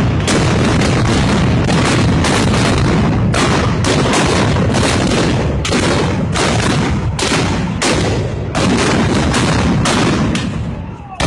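Rapid, continuous volleys of loud black-powder gunshots, about two to three blasts a second, easing briefly near the end: typical of arquebus and blunderbuss firing (arcabucería) at a Moros y Cristianos festival.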